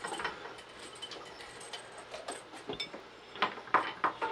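Light clicks and metallic clinks of metal lathe parts being handled and fitted during assembly, with a few sharper knocks near the end.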